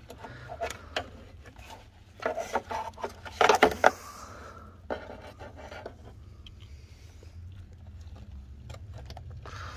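Rubbing and scraping as a ribbed accessory drive belt is worked onto its pulleys by gloved hands, with two clusters of louder knocks and scrapes about two and three and a half seconds in, over a steady low hum.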